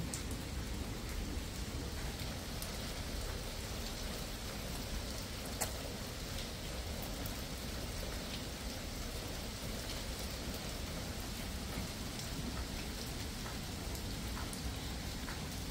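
Steady rain, an even hiss with scattered drop ticks and one sharper tap about five and a half seconds in.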